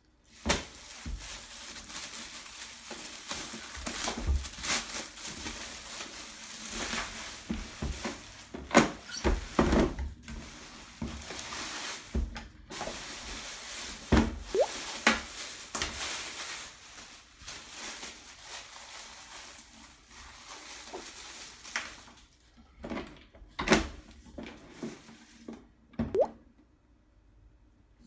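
Packaging being handled: continuous rustling and crinkling with scattered knocks and bumps as a humidifier is lifted out of its box and unwrapped. The handling stops about two seconds before the end.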